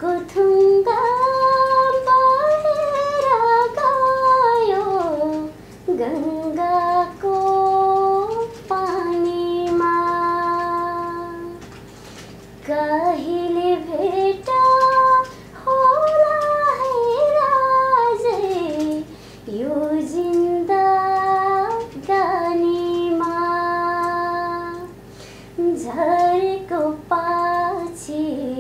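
A young woman singing an old Nepali adhunik (modern) song alone, with no instruments, in phrases of a few seconds with long held, sliding notes and short breaks for breath.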